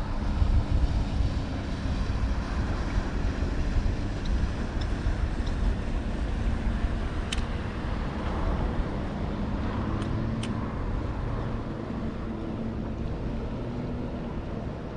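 Steady low rumble of a boat motor running, with a faint constant hum. A few light clicks come about halfway through.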